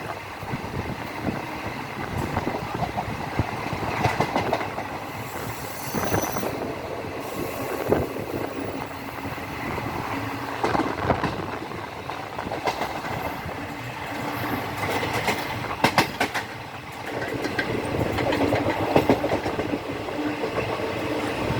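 Train wheels running over the rails, a continuous rumble broken by irregular clicks and knocks as the wheels cross joints. A low steady tone comes in over the last few seconds.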